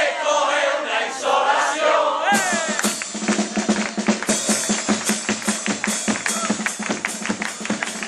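Chirigota street band striking up its music about two seconds in: a quick, steady beat on bass drum and snare under a steady buzzing tone of carnival kazoos. Before it starts, a couple of seconds of voices and shouts from the group and crowd.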